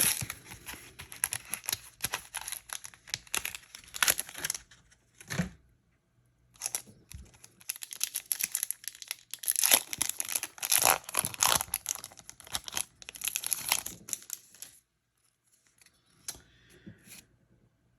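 A Yu-Gi-Oh booster pack's foil wrapper being torn open and crinkled, in two busy stretches of rustling and tearing, with only a few faint rustles near the end.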